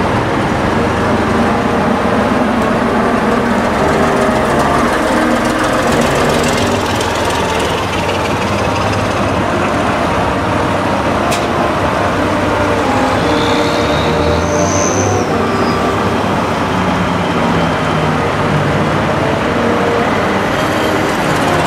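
Schlüter tractor diesel engines running steadily, with a single sharp click about eleven seconds in.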